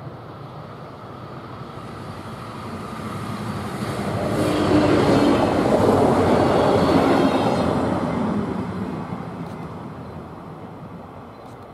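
DB Class 643 Talent diesel multiple unit passing close by: the rumble of its engines and wheels builds, peaks about five to seven seconds in, then fades as it runs away.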